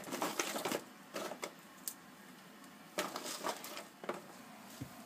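Wood fire in a small tin-can woodgas stove crackling, freshly fed twigs giving irregular sharp clicks and pops in short clusters over a faint hiss.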